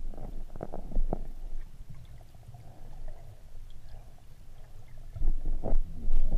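Muffled low rumbling and thumping of water and handling noise on a camera filming underwater, in two clusters: one at the start and another about five seconds in.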